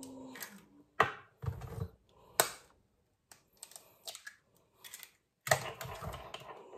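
Eggs being cracked by tapping the shells with a metal fork over a stainless steel bowl: several sharp clicks of fork on shell, the shells breaking and being pulled apart. Near the end there is a longer rustle as another egg is taken from the pulp egg tray.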